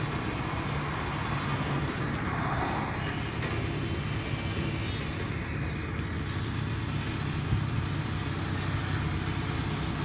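Diesel engine of a tracked hydraulic excavator running steadily at idle, a constant low hum under a noisy mechanical wash.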